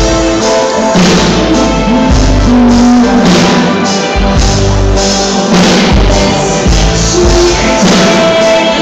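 Live band playing loud: a woman singing into a microphone over keyboards, electric guitar and drums, picked up through a phone's microphone.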